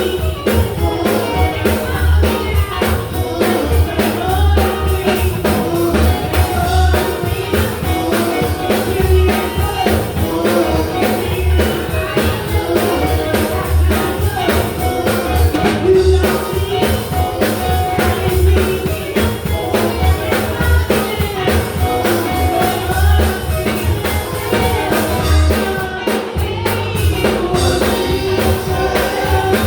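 Live gospel band playing a song: drum kit, guitar and keyboard with a singer's voice over a steady beat.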